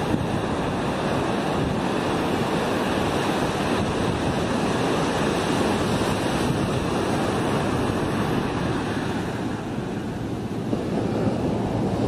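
Steady, dense rushing noise, like wind buffeting the microphone.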